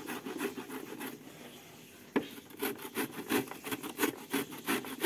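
Cucumber being grated on a hand grater: quick, rhythmic rasping strokes, about four a second. The strokes ease off for a moment, then a sharp knock comes about two seconds in, and the grating picks up again.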